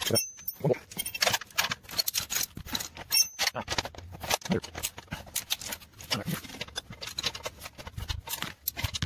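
Irregular metallic clicking and clinking of a hand wrench working the engine-mount bolts on a minibike's steel frame.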